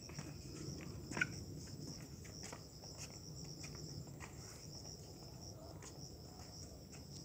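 Insects trilling steadily in a high, even pitch, like crickets, with a few faint clicks, the sharpest about a second in.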